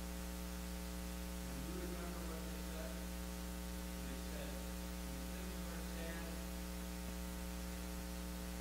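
Steady electrical mains hum from the sound system, with a faint, distant voice barely audible underneath it now and then.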